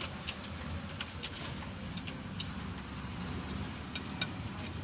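Steady low engine rumble with sharp metallic clicks at irregular moments, about eight in all.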